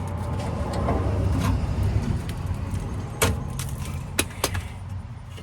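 A few sharp metal clinks over low rumbling handling noise as hands and tools work a loosened fastener on a truck's spare tire winch.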